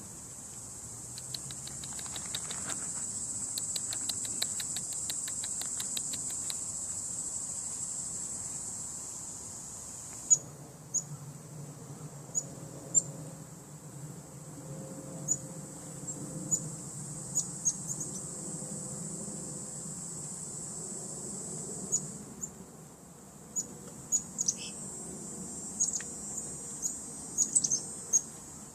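Insects or crickets keep up a steady high-pitched drone, pulsing rhythmically for the first several seconds. From about ten seconds in, short sharp bird chirps come at intervals, bunching together near the end.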